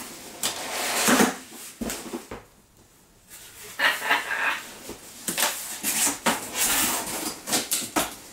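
Cardboard box being opened and craft items in their packaging rustled and knocked about as they are handled, in irregular bursts with a brief lull about two and a half seconds in.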